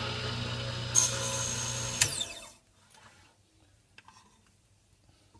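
Small hobby table saw running, its blade cutting through a thin walnut strip for about a second. The saw is then switched off and winds down with a falling whine about two seconds in.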